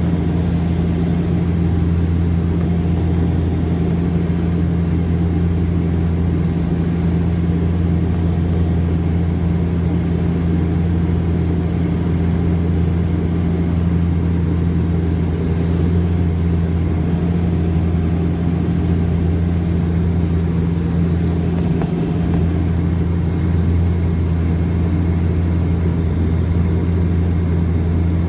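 Turboprop airliner cabin noise in flight: a steady propeller drone with a deep hum and a second tone about an octave higher, over a low rushing sound, heard inside the cabin.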